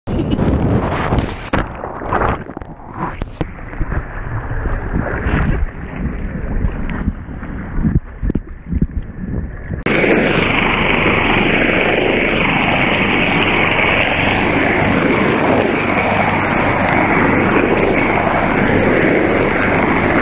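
Wind buffeting the microphone and sea water splashing in irregular gusts, then, about ten seconds in, a sudden change to the steady roar of a rescue helicopter hovering low overhead, with a high turbine whine and rotor downwash whipping spray off the water.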